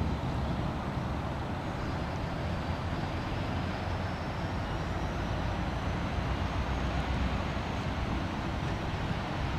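Steady rumble of a short freight train rolling across a concrete trestle bridge, its wheels running on the rails, led by an EMD GP40-2 diesel locomotive.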